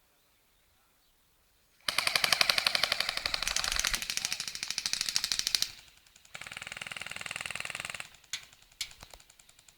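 Airsoft gun firing on full auto: a long rapid burst of about four seconds, then a shorter, slightly quieter burst of under two seconds, followed by a couple of single shots.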